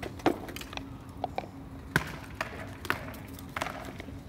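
A few scattered sharp knocks and clacks, the loudest about two seconds in, over a faint steady hum.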